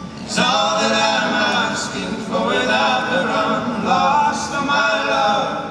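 Several male voices singing a slow song in close harmony, accompanied by an acoustic guitar. The sung phrases begin about a third of a second in and pause briefly twice.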